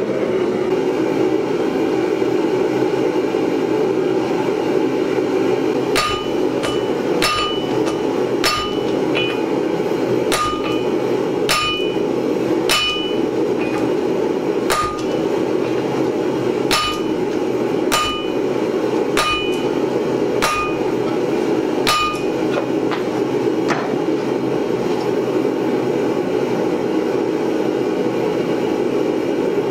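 A hand hammer strikes hot steel on an anvil, about fifteen blows a second or so apart, each with a short metallic ring. The blows start about six seconds in and stop about six seconds before the end, spreading out the petals of a forged steel flower. Under them a lit gas forge's burner gives a steady loud rush throughout.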